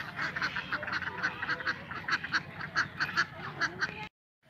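A flock of domestic ducks quacking, many short quacks overlapping in quick succession. The sound cuts out completely for a moment near the end.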